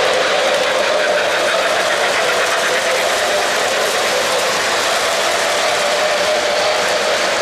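O-gauge three-rail model trains running past, a steady mechanical rolling and rattling of metal wheels on the track.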